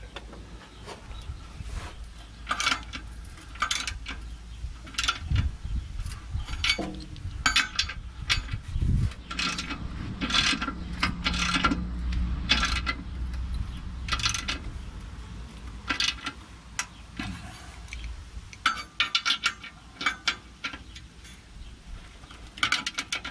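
Socket ratchet clicking in short runs while tightening the bolts on a catalytic converter's exhaust flange, with light metallic clinks of tool on bolt.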